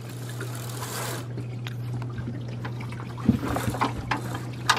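Water lapping and trickling against the inflatable dinghy and the boat's hull, over a steady low hum. A couple of sharp knocks near the end.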